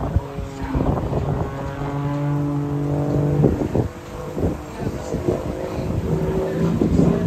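Single-engine aerobatic propeller plane's engine droning during a smoke-trailing dive, a steady tone that fades out about three and a half seconds in and comes back near the end.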